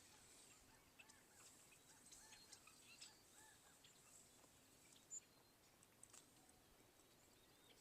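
Faint dawn birdsong: a bird repeating a short rising-and-falling call every second or so for the first three and a half seconds, with scattered tiny high chirps, one sharper chirp about five seconds in, and a thin steady high tone.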